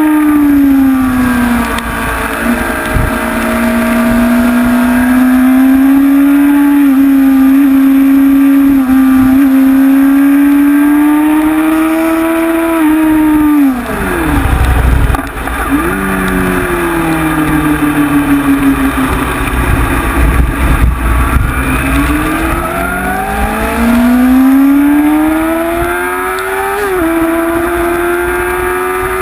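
Honda CBR sport bike's inline-four engine heard onboard at track speed, its pitch rising and falling with the throttle. The revs drop sharply about halfway through with a burst of low rumble, then climb steadily again before a gear change near the end.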